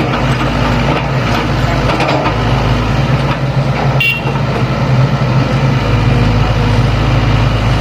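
Sany hydraulic excavator's diesel engine running steadily while working. About four seconds in comes a brief sharp, high metallic sound.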